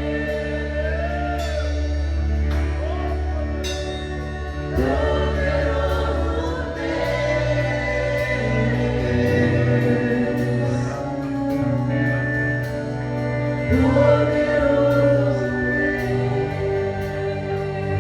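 Live worship band playing a slow gospel song with sustained bass and keyboard chords, light cymbal strokes and singers holding long notes.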